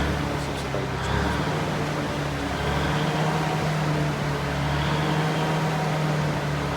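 Cummins NT 855 inline-six diesel engine running steadily just after starting, now that the manual stop knob has been turned back in.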